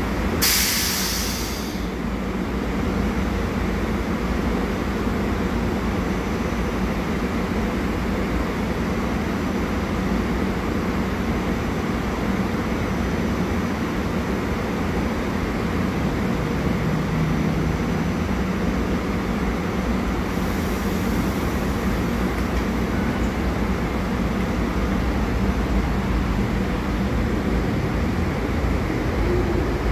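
SEPTA Regional Rail electric multiple-unit commuter train on the far track, giving a steady rumble, with a short hiss about half a second in.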